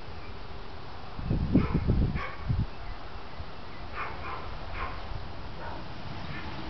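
A dog barking in short separate barks: a louder cluster about a second in, mixed with low rumbling, then several fainter barks spaced out over the rest.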